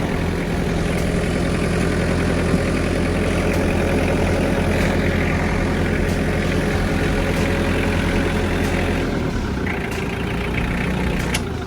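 Diesel engine of an LS tractor running steadily; about nine seconds in its note changes and drops slightly.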